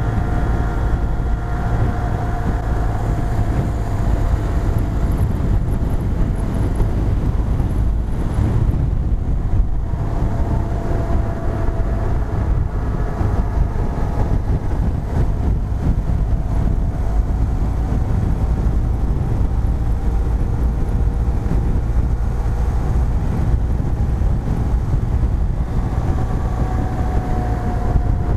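BMW R1250 GS Adventure's 1254 cc boxer-twin engine droning steadily at highway cruising speed, about 55–60 mph, under a constant low rumble of wind on the microphone.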